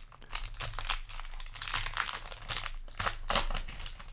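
Foil booster-pack wrapper crinkling as it is handled, in a run of irregular rustles.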